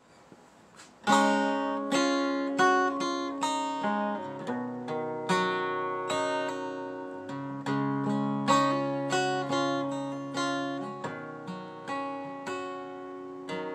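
Jasmine acoustic guitar playing a slow intro, chords picked and strummed with each one ringing out, starting about a second in.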